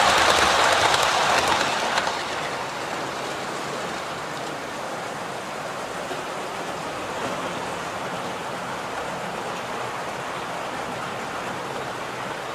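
00 gauge model train running past close by, its coach wheels rolling over the track with a rushing rattle. The sound drops sharply about two seconds in, and a quieter steady running noise carries on.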